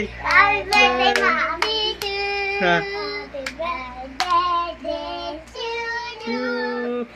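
A child singing a tune in long held notes, with sharp hand claps several times, mostly in the first half.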